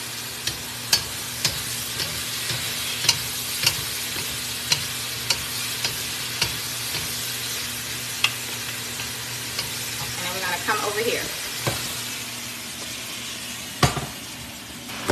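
Pork strips and vegetables sizzling in a wok while two wooden spatulas toss them, knocking and scraping against the pan about once a second. The burner has just been switched off, so the sizzle comes from the pan's remaining heat.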